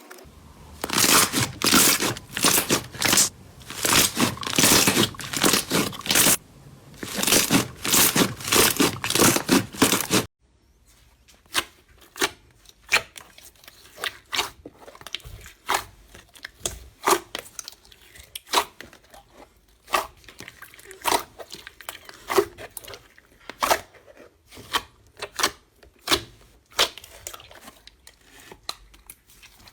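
Slime being squeezed and pressed by hand. It gives a dense, loud crackling for about ten seconds, then cuts abruptly to quieter, scattered clicks and pops.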